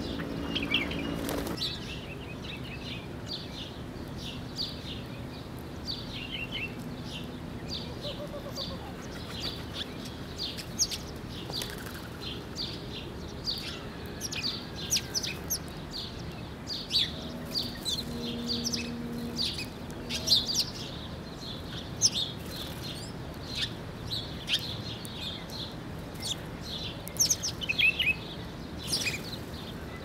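House sparrows chirping at a feeding spot: many short, high chirps scattered throughout, busier in the second half. A brief low call sounds just before the 20-second mark.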